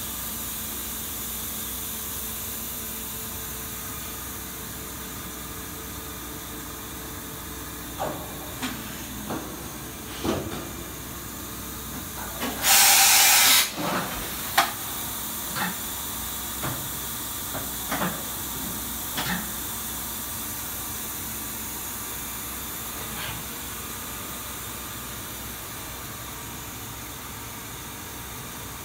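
Kitamura CNC vertical machining center running with a steady hiss, with scattered short clicks and knocks and a loud hissing burst lasting about a second about 13 seconds in.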